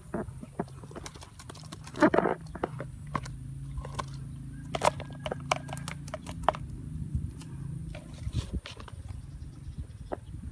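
Woven bamboo fish trap knocked and shaken over a plastic bucket to empty out its catch: a run of sharp clicks and rattles, loudest about two seconds in, over a low steady hum.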